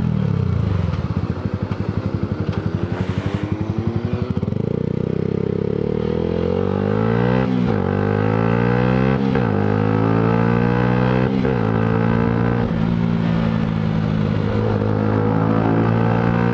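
Yamaha sport bike's engine heard from the rider's seat: pulsing at low revs for the first few seconds, then accelerating, its pitch climbing and dropping at each of several upshifts.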